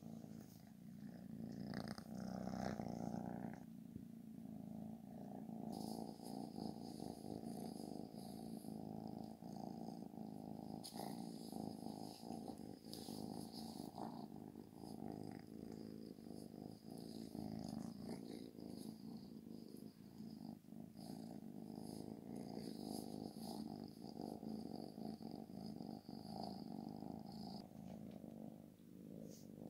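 Tabby kitten purring steadily, without a break.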